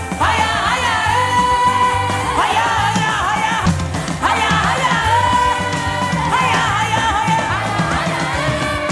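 Gospel worship music: a sung vocal line over band accompaniment with a steady, pulsing bass.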